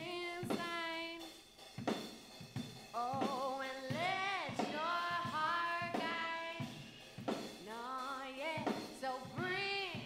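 Playback of a looped song section: a female lead vocal sung over a drum kit, with reverb from Studio One's Mixverb plugin added to the vocal.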